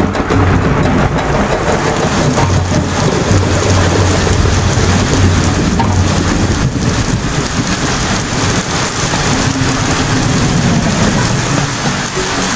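Heavy rain falling steadily in a thunderstorm, a dense even downpour, with a low rumble of thunder underneath that swells and fades several times.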